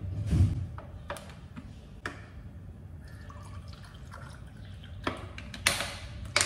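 Water poured from a plastic bottle into a small steel saucepan, with scattered clicks and knocks from the bottle and pan being handled, and a louder crackle of the plastic bottle near the end as it is recapped.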